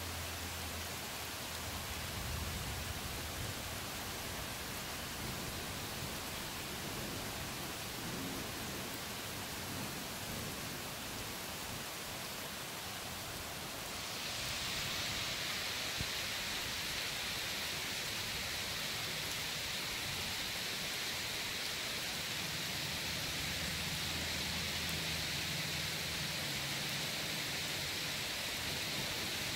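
Steady rain falling during a thunderstorm, an even hiss that turns heavier and louder about halfway through.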